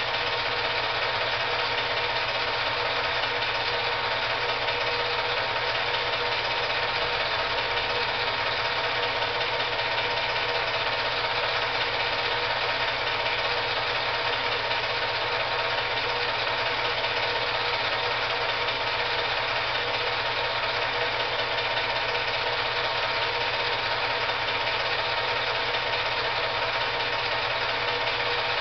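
8 mm film projector running: a steady mechanical whir and rattle over a constant hum.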